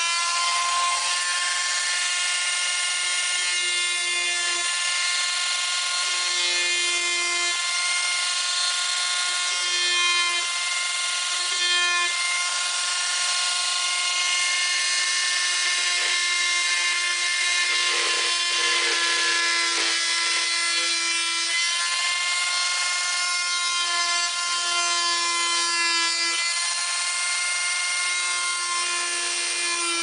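Oscillating multi-tool with a round saw blade running and cutting a lock mortise into a wooden door panel: a steady high buzzing whine that gets louder in spells as the blade is pressed into the cut.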